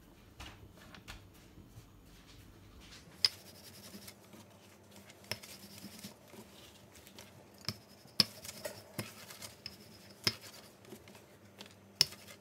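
Wooden rolling pin rolling out paratha dough on a floured cutting board: a soft scratchy rubbing, broken by a few sharp clacks a second or more apart as the pin knocks the board.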